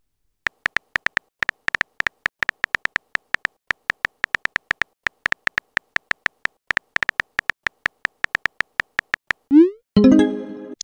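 Texting Story app's simulated keyboard: a long run of short, slightly pitched key-tap clicks, several a second, as a text message is typed. Near the end a quick rising swoop and a chime with several tones play as the message is sent.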